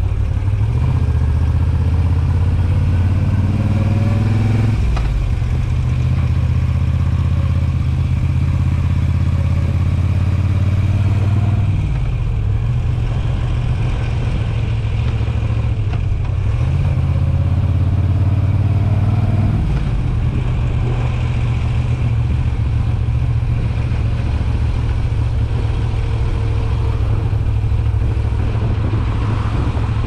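2021 Moto Guzzi V7 850's air-cooled transverse V-twin through Mistral short aftermarket silencers, running on the road. The revs rise and fall three times, dropping back about five, twelve and twenty seconds in.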